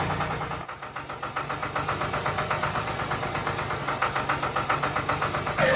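Small engine running with a rapid, even chugging beat. It drops back briefly about a second in, then keeps running.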